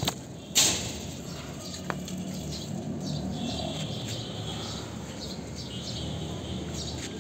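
A sharp click about half a second in, then small birds chirping over a steady low rumble.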